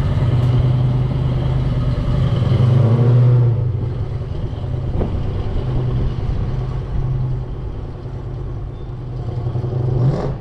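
1967 Chevy Nova's V8 running, revving up around two to three seconds in, then settling back; it swells again near the end and cuts off suddenly.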